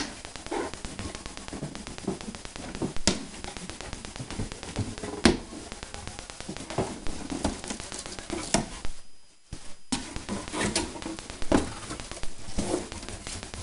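A large flat cardboard box being handled and pulled open: irregular scraping and rustling of cardboard with small taps, and two sharp knocks in the first half.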